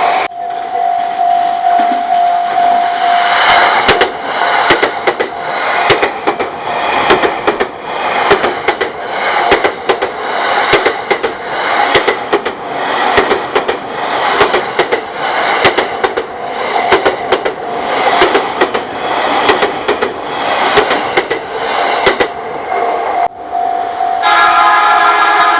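A JR East train passing through a level crossing, its wheels clattering in a regular rhythm over the rail joints for about 23 seconds, with the crossing's warning bell ringing as a steady tone. The train noise cuts off suddenly near the end, leaving the crossing bell, and a louder chord of several tones joins it just before the end.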